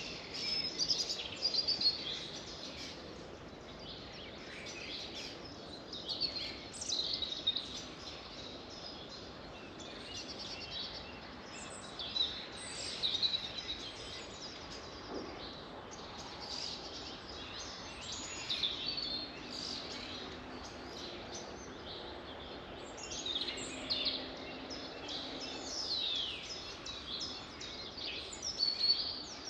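Several songbirds singing and chirping in quick, repeated phrases with some fast downward-sweeping notes, over a steady hiss of outdoor background noise.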